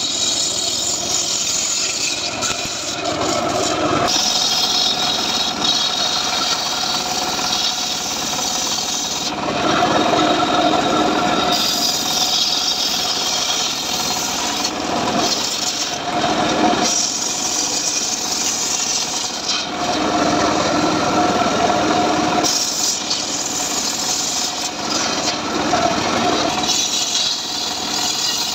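Homemade circular saw bench ripping trembesi (rain tree) planks lengthwise. The blade runs steadily and loud, and its sound shifts every few seconds between a high, hissing cut and a lower hum as each plank is pushed through.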